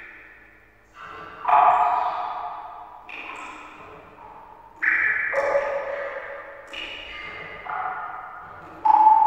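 Water drops falling one at a time into water, each a pitched plink with a long echoing ring-out. About eight drops land at irregular intervals, each at a different pitch.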